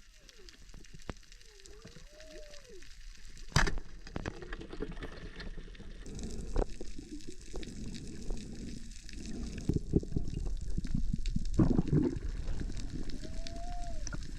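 Water gurgling and bubbling as heard underwater, with dense crackling and clicking, and one sharp knock about three and a half seconds in.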